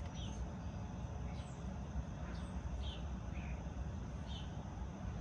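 Short, high bird chirps, several per second at irregular spacing, over a steady low background rumble.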